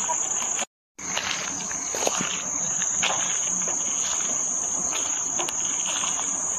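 Insects trilling in one steady, high-pitched tone, with footsteps on a path. The sound cuts out completely for a moment under a second in.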